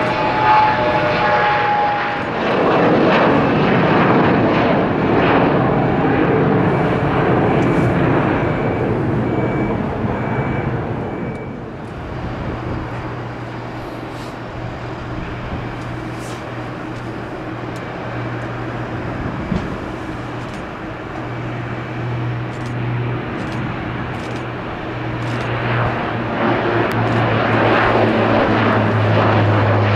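Aircraft engines running at an airport: a loud rushing engine noise for the first ten seconds or so that eases off, then a steady low hum that builds again near the end.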